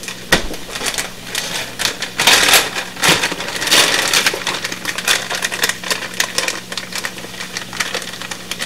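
Plastic zip-top freezer bag crinkling and rustling as it is handled and opened, with irregular crackles throughout and the loudest rustling about two to four seconds in.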